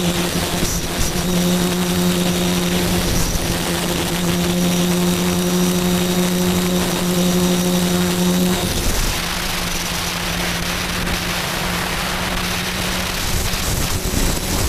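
Steady hum of the FPV aircraft's new electric motor and propeller, heard through its onboard camera. About nine seconds in the throttle is eased and the rushing of wind over the airframe takes over, and the motor comes back strongly near the end.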